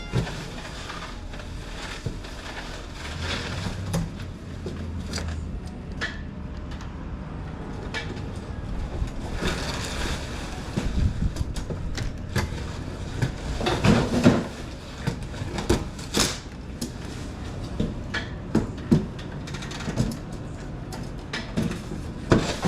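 Scattered knocks and clicks, more frequent in the second half, over a low steady hum: handling noise from equipment being moved about.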